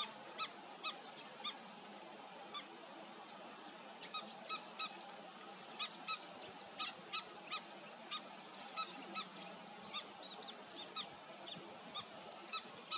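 Black-winged stilts calling: short, sharp nasal notes repeated at irregular intervals, sometimes several in quick succession. A quick run of thinner, higher notes from another bird comes around the middle.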